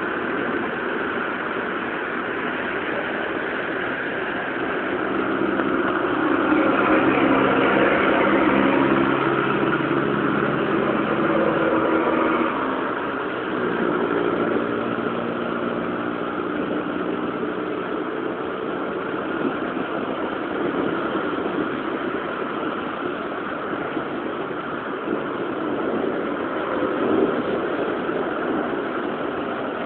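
Steady hiss of falling rain, with a motor vehicle's engine running beneath it from about five seconds in. The engine is loudest in the middle and fades out after about seventeen seconds.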